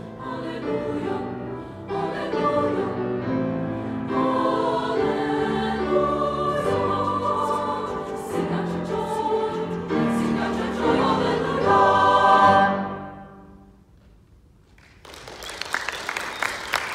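Mixed choir singing in full harmony, building to its loudest on a final chord that fades out about thirteen seconds in. After a pause of about a second and a half, applause starts.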